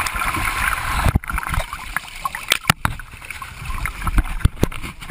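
Sea water splashing and sloshing close to a small camera's microphone, with repeated sharp knocks and bumps against the camera.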